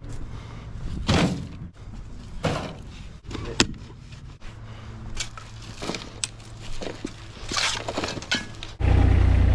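A series of short scrapes and knocks from hand work at a drain dig, with one sharp click about three and a half seconds in. Near the end a skid steer's engine cuts in, running loud and steady.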